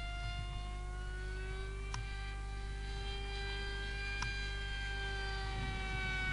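Whine of a small electric RC jet's brushless motor and propeller in flight (a Don's Wicked 3000 kV motor driving an APC 4.1x4.1 prop). The pitch drifts slowly up and down as the plane passes, over a steady low hum, with two short clicks about two and four seconds in.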